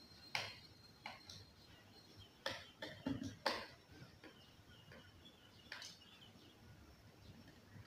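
Small screwdriver tightening screws that hold a computer motherboard to its metal mounting frame: a scatter of faint clicks and taps from the tool and screws, the loudest about three and a half seconds in.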